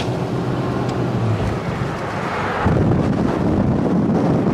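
Car engine humming steadily in a fast-moving car. About two and a half seconds in, loud wind rushing over the microphone takes over.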